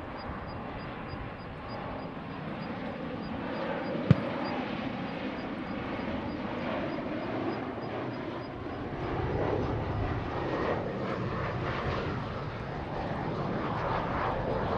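Jet noise from an Embraer E-Jet regional airliner's General Electric CF34 turbofan engines: a steady rushing that grows slowly louder. A single sharp click about four seconds in.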